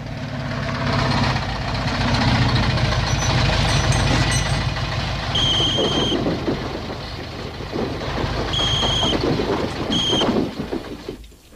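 A heavy truck's engine running outside, with a low, pulsing rumble that swells and then fades near the end. Three short shrill high tones sound over it, about halfway through and twice near the end.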